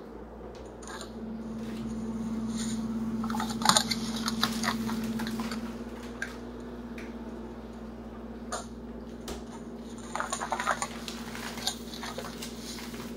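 Plastic packaging of a bag of cooked shrimp crinkling as it is handled, in two spells of crackling, about four seconds in and again around ten to eleven seconds, over a steady low hum.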